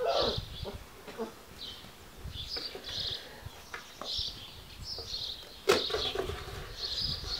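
Giant Schnauzer puppies scuffling and tugging at a loose wooden board on paving slabs. Repeated short, high chirps run throughout, and a sharp knock a bit over halfway through is the loudest sound.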